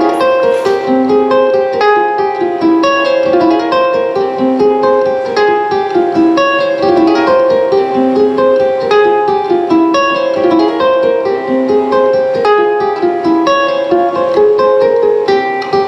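Live plucked string instrument playing a fast, repeating figure of short picked notes, with a lower note returning every few seconds.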